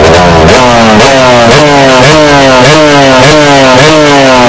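Motocross dirt bike engine revved hard over and over while the bike stands still. The pitch climbs and then drops sharply about twice a second, in a string of quick throttle blips.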